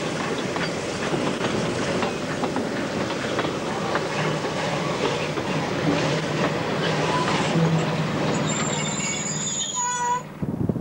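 Steam-hauled heritage passenger train passing close by: carriage wheels clatter over the rail joints and squeal against the rails. Near the end comes a drawn-out high squeal.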